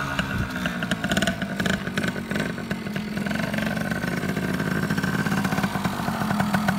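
Yamaha TY80 trials motorcycle's small two-stroke single-cylinder engine running as the bike is ridden slowly. Its pitch drops in the first second as the throttle comes off, then it runs steadily, growing a little louder toward the end.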